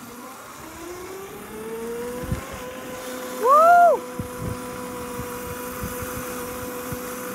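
Small electric ride-on scooter's motor whining, rising in pitch as it speeds up over the first two seconds, then holding a steady whine at cruising speed, with low thumps from the ride. About three and a half seconds in, a short loud rising-and-falling vocal whoop.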